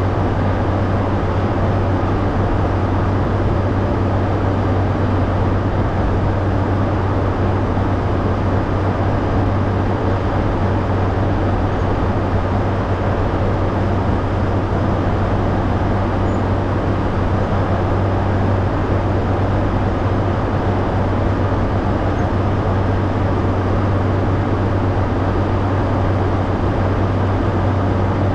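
Caterpillar motor grader's diesel engine running steadily: a deep, even drone that holds the same pitch throughout.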